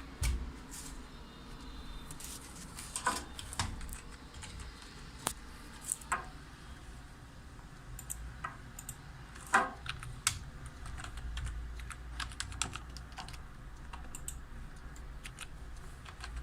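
Keys being typed on a keyboard: irregular, scattered clicks and taps, a few of them louder, over a low steady hum.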